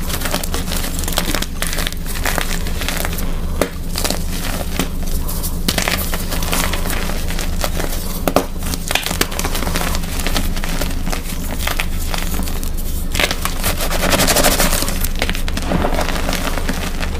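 Blocks of plain gym chalk crushed and crumbled by hand: dense crunching and crackling as the blocks break into chunks and powder, heaviest about three quarters of the way through.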